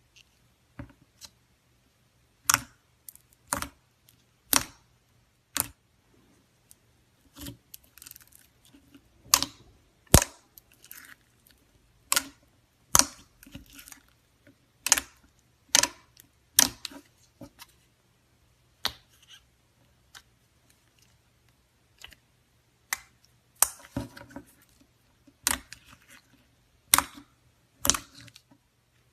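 Clear slime being squeezed and poked, giving sharp popping clicks at an irregular pace of about one a second, with a few quiet gaps.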